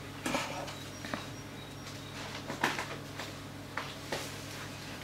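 A few light, separate knocks of metal cake tins being handled and set against each other on a wooden table while batter is poured from one tin into the other, over a steady low hum.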